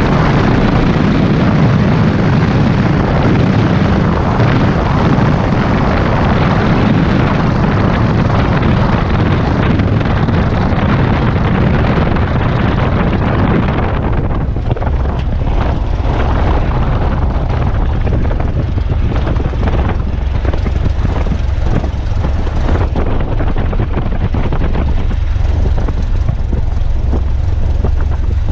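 A single-engine light airplane's engine and propeller running steadily while taxiing, heard from inside the cabin. About halfway through the louder, broad noise eases off, leaving a steady low engine hum.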